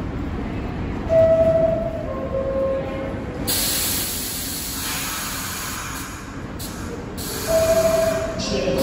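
Steady hum and hiss of an R62A subway train standing in the station with its doors open. A short electronic chime of two or three stepped tones sounds about a second in and again near the end.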